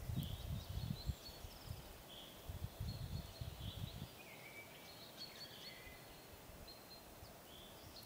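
Small songbirds chirping and calling in a spring forest, short high calls with some little glides scattered throughout. Low rumbles of wind on the microphone come in the first second and again around the middle.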